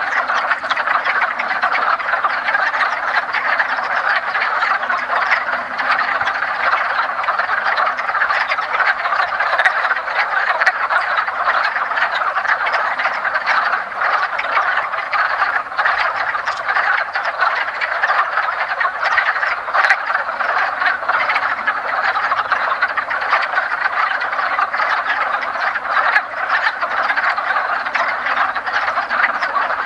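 Dense chorus of many male wood frogs calling together, a continuous mass of overlapping short calls with no pause: the breeding chorus that males give in early spring to draw females to the pond.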